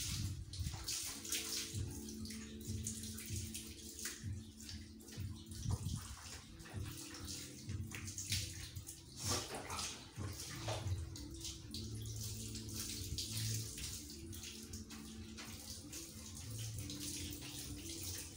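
Water splashing and trickling as a dog is washed by hand: a scoop of water poured over a wet Japanese Spitz and hands working water through its coat, the water running off onto the floor in uneven splashes.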